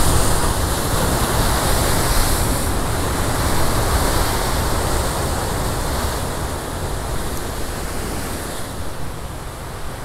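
Ocean swell breaking and washing white over the rocks below, a continuous surf noise. It is loudest in the first few seconds and eases off toward the end.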